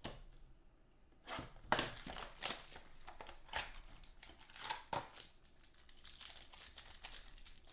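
Clear plastic wrapping crinkling and rustling as hands open and handle a pack of trading cards, with several sharper crackles among the rustle.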